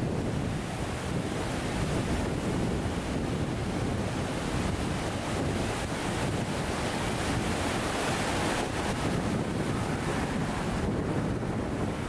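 Steady rush of falling water from a waterfall, an even roar with no pauses.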